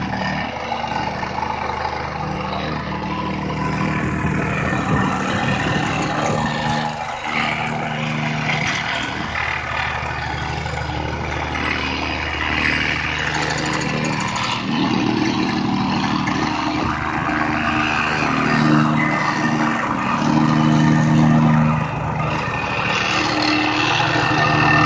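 Petrol-engined Lumag RP 1400 PRO vibratory plate compactor running on loose gravel, its single-cylinder engine and vibrating plate making a steady hum. The engine note swells louder a few times in the second half.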